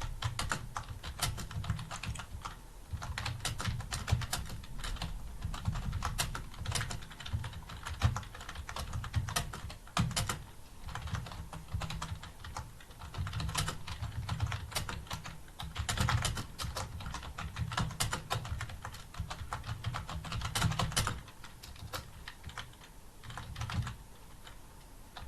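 Fast, continuous typing on a computer keyboard during a timed typing test, the key clicks coming in quick irregular runs with brief pauses.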